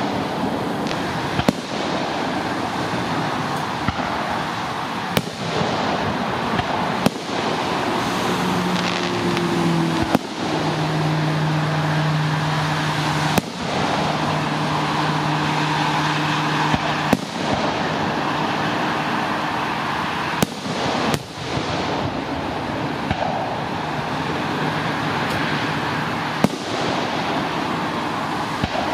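Aerial fireworks shells bursting, about a dozen sharp bangs at irregular intervals, over a steady background noise.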